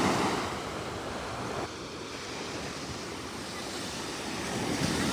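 Steady rushing noise with no tone or rhythm, a little louder at the start and near the end.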